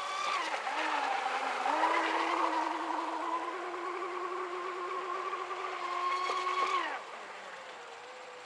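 Brushless electric motor of a stock Aquacraft UL-1 RC speedboat whining at high throttle. The pitch dips and wavers about a second in, then climbs back and holds steady. About seven seconds in the whine winds down sharply as the throttle is released.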